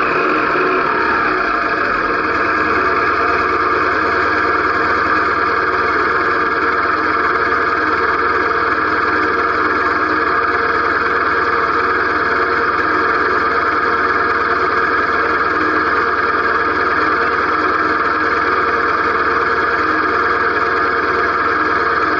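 Motorcycle engine running at low speed as the bike rolls to a stop, then idling steadily.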